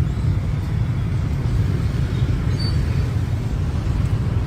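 Steady low rumble of road traffic at a congested crossing.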